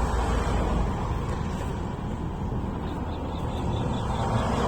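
Highway traffic passing close by: a steady rumble and tyre hiss of vehicles going by, swelling a little near the end.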